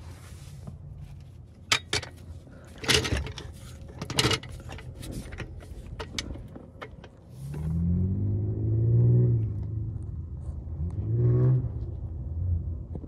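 A few sharp metallic clicks and knocks as a floor jack is worked under the car. Then, from about halfway through, a low motor-vehicle engine rumble that swells and rises in pitch twice.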